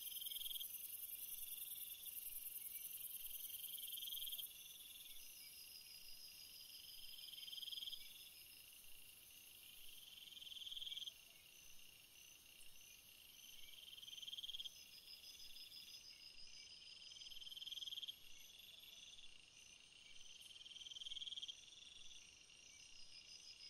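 Faint chorus of night insects such as crickets: a trill that swells for about a second and breaks off, repeating every three or four seconds, over a steady higher, faster chirping.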